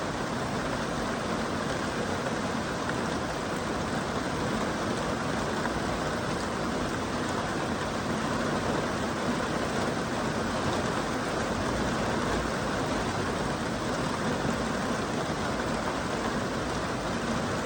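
Steady rain falling, an even hiss of many drops with no single drop or thunder standing out.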